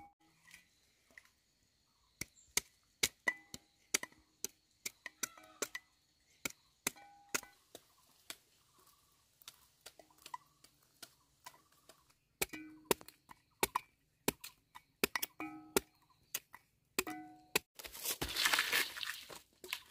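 Machete chopping into a peeled cassava root: a long run of sharp, separate chops, irregular and sometimes in quick pairs. Near the end a short burst of rustling noise.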